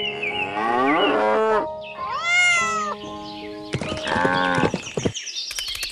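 Animal-call sound effects: several pitched cries that rise and fall, one after another, over light background music.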